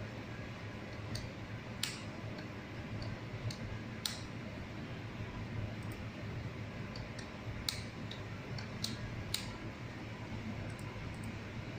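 About ten sharp, irregularly spaced clicks from operating a computer while filling in a form, with a steady low hum of computer and room noise underneath.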